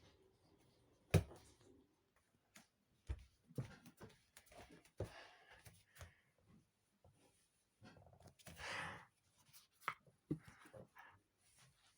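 A cat playing with a person's hand: scattered light knocks, taps and scuffs, the sharpest about a second in, with a short breathy rush about nine seconds in.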